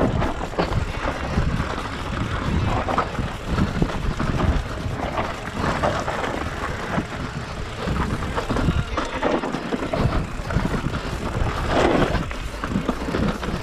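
Mountain bike descending a downhill dirt trail at speed: steady wind rush on the microphone with tyres rolling over rough ground, and the bike rattling and knocking irregularly over bumps.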